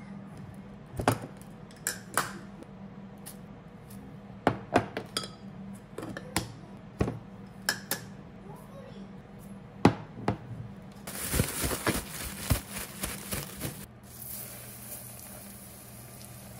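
Kitchen prep sounds: clinks and knocks of glass jars and a measuring spoon on a countertop as potato starch and rice flour are measured out. About eleven seconds in, a plastic bag rustles and crinkles for a few seconds as chicken is coated in the flour. Then, near the end, chicken pieces sizzle in hot oil in a cast-iron pot.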